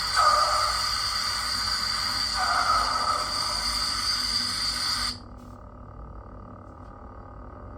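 Neopixel lightsaber's sound board playing its electric hum with a hiss and a high steady tone, swelling twice, then cutting off suddenly about five seconds in and leaving a much fainter hum.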